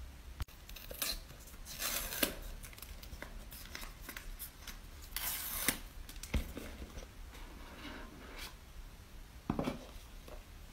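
Paper tear-strip seals being ripped off an iPhone 14 Pro Max's cardboard retail box, in several short scratchy tears, the longest about five seconds in. A soft knock of the box against the table comes just after, and more rustling as the box is handled and opened near the end.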